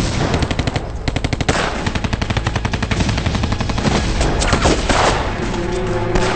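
Battle gunfire: a light machine gun firing rapid bursts of about ten rounds a second, followed by sparser rifle shots over the last couple of seconds.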